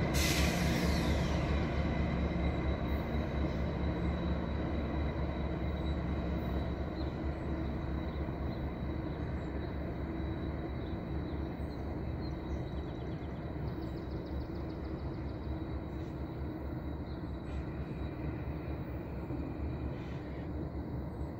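GO Transit diesel passenger train running away along the tracks, its low rumble slowly fading as it recedes, with a thin steady high-pitched ring over it. A brief downward hiss comes right at the start.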